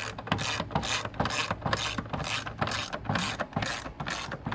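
Hand ratchet with a 5/16 socket clicking in a steady rhythm of about three to four clicks a second. It is being swung back and forth to back out a long screw.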